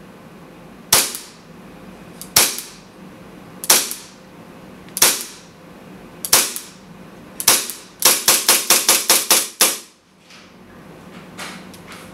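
KJ M1911A1 CO2 gas blowback airsoft pistol firing: six single shots about a second and a half apart, then a fast string of about nine shots in under two seconds. A few faint clicks follow near the end.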